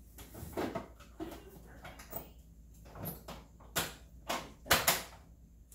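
Hard plastic clicking and knocking as a Ninja blender lid is handled and fitted onto its jar: a scatter of sharp taps, the loudest pair close together near the end.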